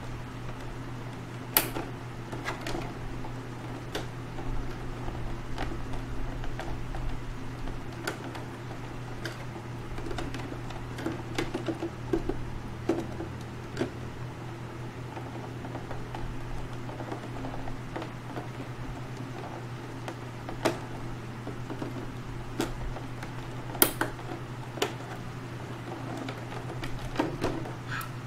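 Scattered clicks and taps of a boxed anime figure and its plastic packaging being handled and unpacked, with two sharper clicks, about one and a half seconds in and near the end, over a steady low hum.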